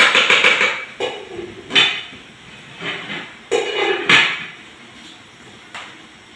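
Stirring utensil clattering and scraping against a pan in a run of sharp bursts for the first four seconds or so, then it quietens; the oil-phase ingredients are being stirred as they melt.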